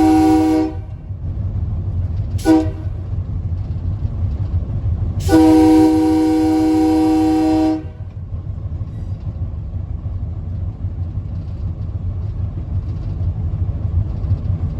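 Train horn sounding three times: a brief blast at the start, a very short toot about two and a half seconds in, then a long blast of about two and a half seconds. A steady low rumble of the moving train runs underneath.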